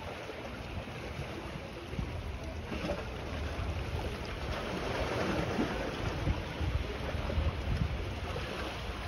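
Wind buffeting the microphone over the steady wash of small waves on the shore, swelling a little in the middle.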